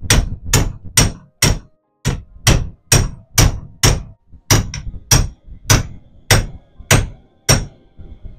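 Club hammer striking aluminium blocks clamped in a steel bench vice, about two sharp blows a second, sixteen in all, with a pause shortly before the end. The blows are bending a metal cable tang to an angle between the aluminium pieces.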